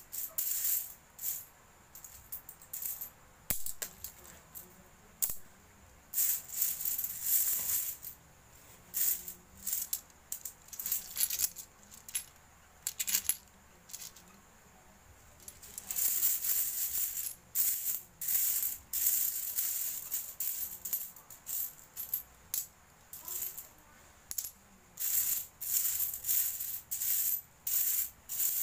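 Handfuls of metal coins jingling and clinking as they are scooped from a pile and let fall, in irregular bursts with short quiet gaps between.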